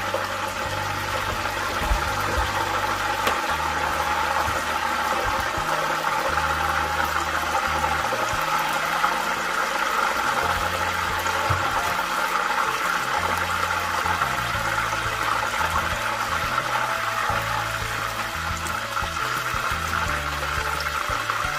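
Background music with a changing bass line over a continuous, even hissing noise that runs the whole time.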